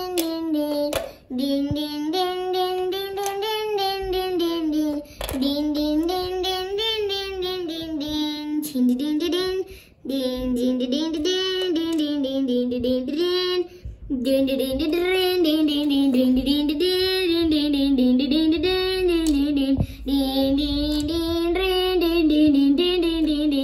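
A child singing a melody, held on and gliding between notes, with a few short breaks.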